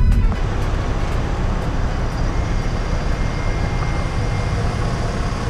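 Passenger train carriages passing close by: a steady low rumble with rushing noise, and a faint thin squeal in the middle.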